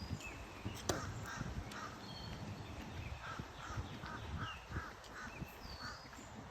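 Birds calling: a run of about a dozen short calls repeated in quick succession, with thin, higher chirps over them.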